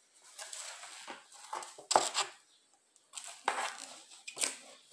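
Rustling and light knocks of a large hardback picture book being handled and lifted, with a sharper knock about two seconds in and another near the end.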